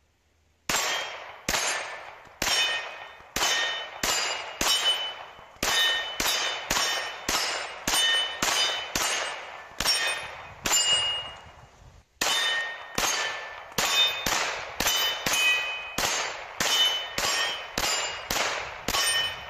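Glock 19 Gen5 9mm pistol fired in rapid strings, each shot followed by the ringing clang of a hit steel target. The two long strings are separated by a short pause about twelve seconds in.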